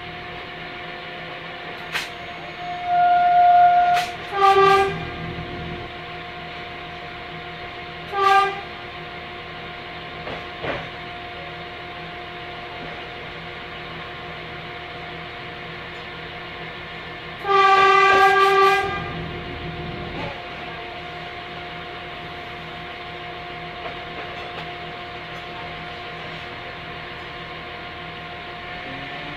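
Train horn sounded from aboard a moving train. A higher single note comes about three seconds in, then a lower, richer note in two short blasts and one longer blast of about a second and a half. Under it is the steady running noise of the carriage, with a few sharp clicks.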